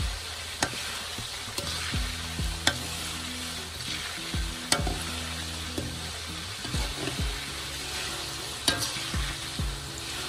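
Goat meat and mắc mật leaves deep-frying in hot oil in a wok, with a steady sizzle. A slotted metal ladle stirs through the oil, clinking sharply against the wok several times.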